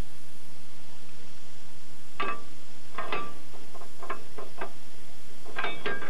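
Iron bar clinking and knocking against the iron frame of a timber tug as it is worked into place for levering a tree trunk. The sound is a string of sharp metallic clinks with a short ring, starting about two seconds in and coming in small clusters.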